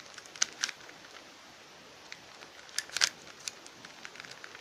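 Plastic clicks of a 3x3 Rubik's cube as its layers are turned by hand: a few scattered clicks, with a quick cluster about three seconds in.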